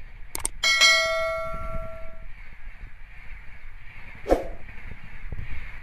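Express train coaches passing close by at speed, a steady rumble and clatter of wheels on the rails. Near the start a sharp click is followed by a bright bell chime that rings for about a second and a half and fades: the sound effect of a YouTube subscribe-button animation.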